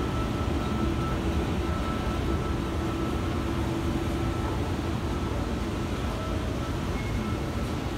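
Escalator running: a steady low mechanical rumble with a faint, thin steady whine above it.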